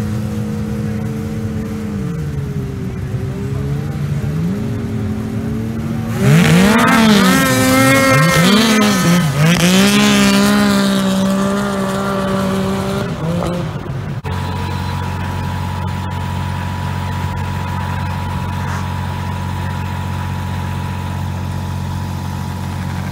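Snowmobile engines revving at a drag-race start. The pitch dips and climbs for a few seconds, then the engines rev hard and loud, swinging up and down repeatedly as the sleds launch up the hill. About fourteen seconds in, the sound changes abruptly to a steady, unchanging engine drone.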